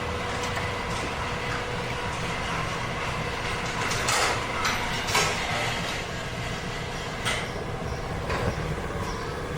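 Steady mechanical hum with a few level tones, broken by several sharp clanks and clicks of metal tools and parts being handled, the loudest about halfway through.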